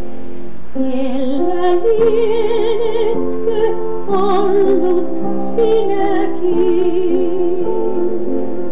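A woman singing a Finnish hymn with a wide vibrato on long held notes, over a sustained instrumental accompaniment.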